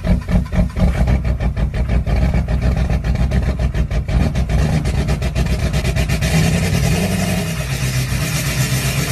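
Diesel engine cold-starting: the starter cranks it in an even pulsing of about five beats a second, then it catches within the first couple of seconds and runs, picking up speed a little past halfway.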